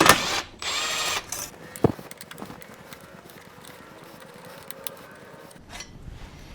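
A brief power-tool whir about half a second in, then a sharp click and scattered light metal clicks and clatter of tools at work.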